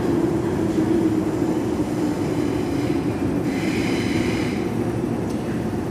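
MTR Island Line subway train running past the platform screen doors as it comes into the station, a steady rumble with a low hum that sinks slightly as it slows. About three and a half seconds in, a brief high squeal of the wheels or brakes rises over the rumble for about a second.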